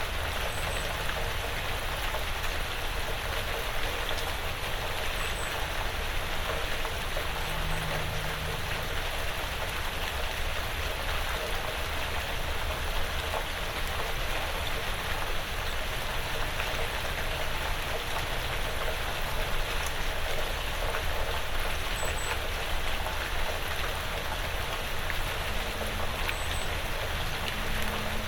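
Steady rain falling on a porch roof and the surrounding woods, an even patter that holds throughout.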